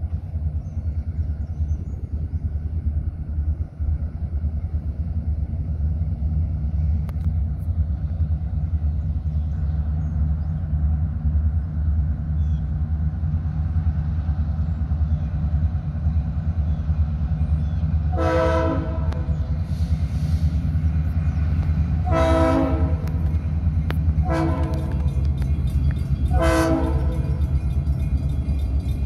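Diesel freight locomotive rumbling steadily as it approaches. About two-thirds of the way in its air horn sounds the grade-crossing signal: long, long, short, long.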